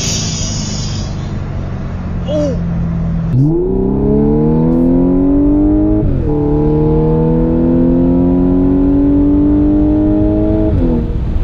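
Cabin noise of another car for the first few seconds, then, from about three and a half seconds in, the APR Stage 2 tuned 2015 Audi S5's supercharged V6 heard from inside the cabin under full-throttle acceleration. Its pitch climbs steadily, drops at an upshift about six seconds in, climbs again, and drops at another upshift near the end.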